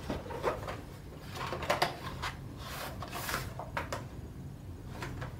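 Cardboard product box and its packaging being handled: scattered light knocks and scrapes, with a longer rustle about three seconds in.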